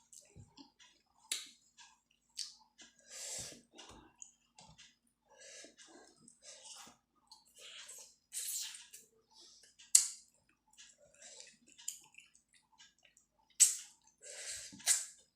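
Close-up eating sounds of a person chewing soupy chicken momos: irregular wet mouth clicks and squishes, with a few sharper clicks.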